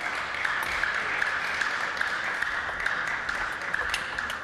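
Spectators in a sports hall applauding steadily after a point in a table tennis match. Near the end come a few sharp clicks of the ball as the next rally begins.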